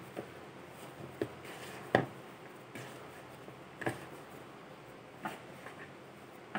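Hand kneading and pressing crumbly ghee-and-flour nan khatai dough in a plastic bowl: scattered soft knocks and rustles, the loudest about two seconds in.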